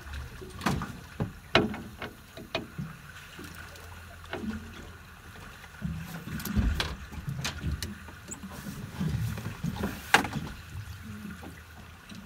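Water slapping against the hull of a small boat drifting with no engine running, with scattered sharp knocks and clicks of fishing gear and handling aboard; the loudest knock comes about ten seconds in.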